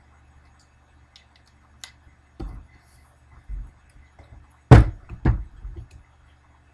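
A few sudden knocks and thumps of objects handled and set down on a work table, the loudest two close together about five seconds in.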